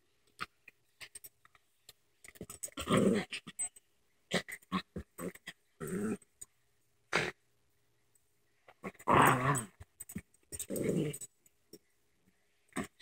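Two small dogs play-fighting, growling in several bursts, the loudest about three seconds in and again about nine seconds in, with light clicks in between.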